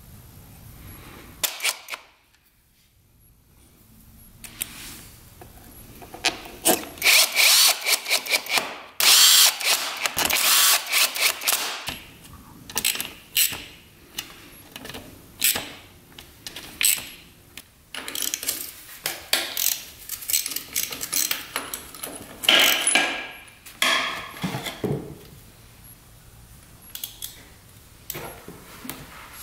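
A hand power tool running in many short bursts. The bursts are densest in the middle, with a quiet gap a couple of seconds in and sparser bursts near the end.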